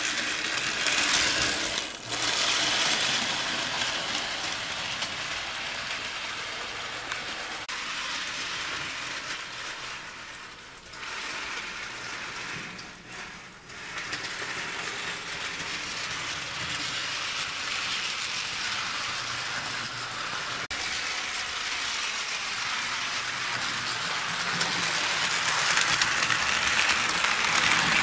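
HO scale model steam locomotive and its train running on sectional track: a steady metallic rattle of wheels and motor gearing. It dips briefly twice around the middle and grows louder near the end as the locomotive comes close.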